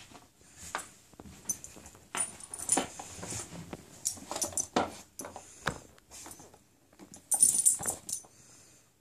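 A pug puppy nosing and pushing a plastic cat track-ball toy: irregular plastic clicks and rattles mixed with the puppy's own sniffing and snorting, with a louder rattle about seven seconds in.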